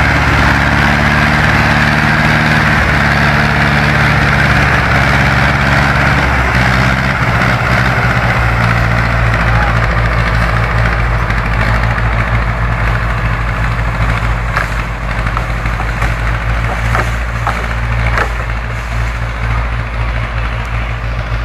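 Small farm tractor's diesel engine running at low revs as it drives over forest ground, its note dropping about seven seconds in and easing slightly as it moves away. A few sharp clicks sound in the second half.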